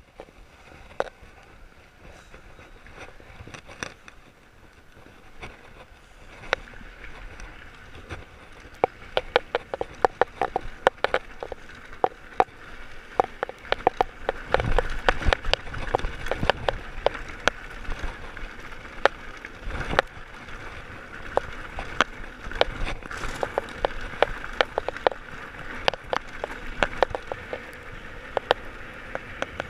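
Electric mountain bike rolling fast down a rough gravel lane: steady tyre noise with frequent sharp rattles and clacks from the bike over loose stones, which get busier after the first few seconds. Low wind gusts on the microphone come twice around the middle.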